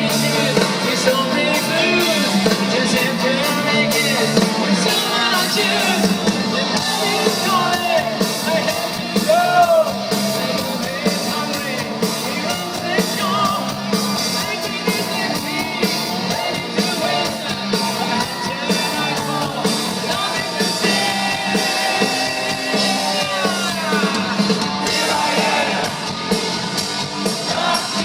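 Rock song playing: a full band with a singer's voice, at times raised to a shout.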